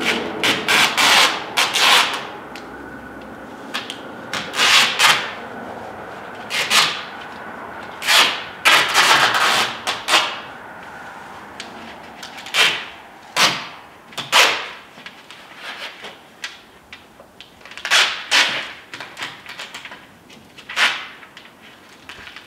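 House-wrap seam tape being pulled off the roll in short, noisy strips and rubbed down by hand, about a dozen pulls spread unevenly with quieter gaps between.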